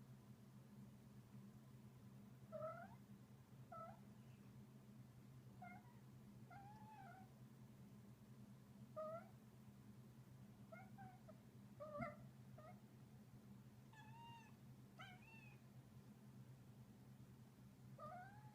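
Munchkin cat trilling as he plays: about a dozen short, chirping calls that mostly rise in pitch, spaced a second or two apart, some in quick pairs. A faint steady low hum runs underneath.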